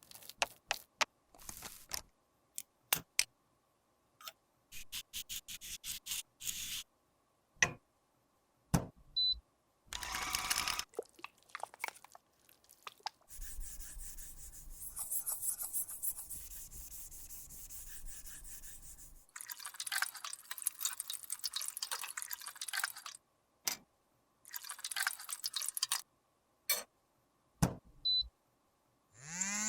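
Close-up sounds of makeup being worked by hand: a string of sharp taps and clicks, short bursts of scraping or rubbing, and a longer stretch of rubbing about 13 seconds in that lasts some six seconds.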